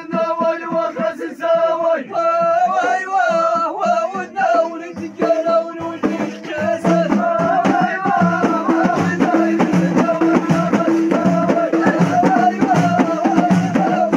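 Men singing a folk chant together. About five seconds in, large hand-held frame drums (bendir) come in, beaten in a steady rhythm under the singing.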